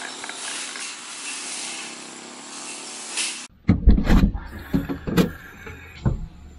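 A motorised grass cutter running steadily. About three and a half seconds in it gives way abruptly to a series of knocks and thuds with a low rumble.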